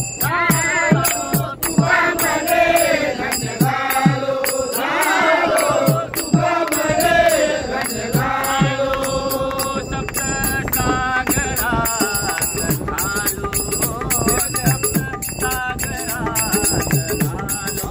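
Men singing a Marathi abhang, a devotional song, together, with small hand cymbals (taal) struck in a steady rhythm and a repeating low beat under the singing.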